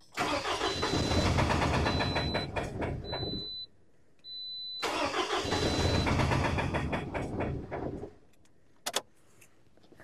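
Car engine cranked over twice by its starter, each attempt lasting about three and a half seconds with a short pause between, without the engine staying running; it is cranked with a faulty ignition coil fitted while the coil and injector current is captured on an oscilloscope. A couple of faint clicks follow near the end.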